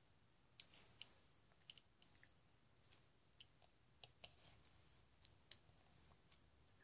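Faint, irregular clicks of a small plastic LEGO minifigure being handled, its pieces snapped and turned in the fingers.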